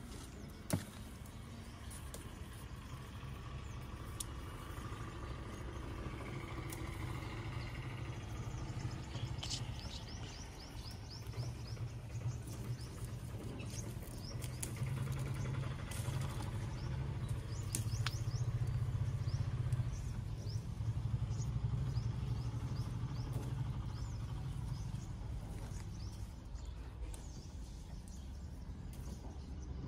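Birds chirping in short runs of quick calls over a low steady hum, like a vehicle engine, that grows louder through the middle and fades again. A few light clicks are scattered through it.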